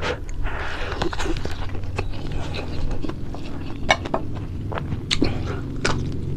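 Close-up eating sounds: chewing with scattered sharp crunches and mouth clicks from crispy fried fish and rice. A steady low hum runs underneath.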